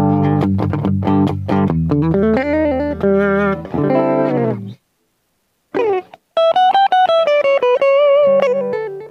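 Electric guitar, a JCraft LT1 Telecaster-style solid body, played: strummed chords for about four and a half seconds, a brief stop, then a single-note lead line that opens with a bent note and ends on long notes with vibrato.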